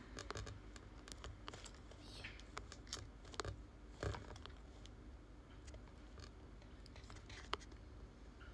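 Faint, irregular taps and clicks of fingertips on a smartphone touchscreen while typing, over a low steady hum.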